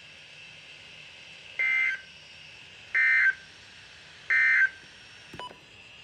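Emergency Alert System end-of-message signal: three short bursts of SAME digital data tones, each about a third of a second long and about 1.3 seconds apart, over faint radio hiss. A brief click comes near the end.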